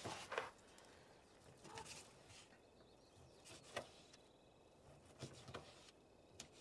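Faint, scattered clinks and scrapes of a knife and fork against a plate as a steak is cut, a few separate ones spread over the seconds.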